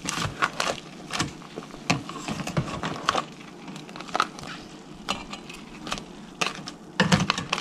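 Cooked crabs' hard shells clicking and clattering against each other and the cookware as they are handled: irregular sharp clicks, a few each second.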